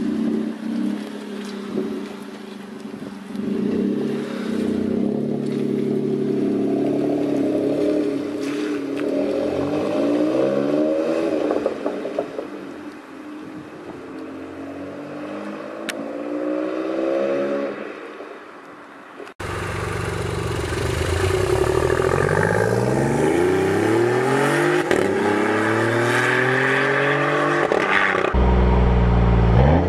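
Seat Mii's 1.0-litre three-cylinder engine revving and pulling away, its pitch rising and falling several times. About 19 seconds in, a BMW i8's 1.5-litre turbocharged three-cylinder engine takes over, louder, accelerating with its pitch climbing again and again.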